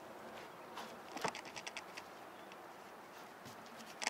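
Fishing reel's line-out clicker ticking in short irregular runs as a catfish takes line off a rod set in its holder, with another quick cluster of clicks near the end.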